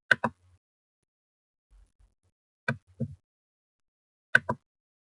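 Computer mouse clicking: three pairs of short, sharp clicks, each pair a press and release of the button, the first at the start, then about 2.7 and 4.4 seconds in, with near silence between them.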